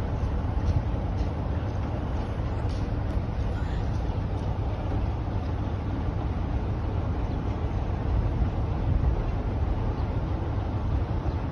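Class 45 diesel locomotive's Sulzer twelve-cylinder engine running steadily, heard from the cab while the locomotive moves slowly along the track, as a deep even rumble.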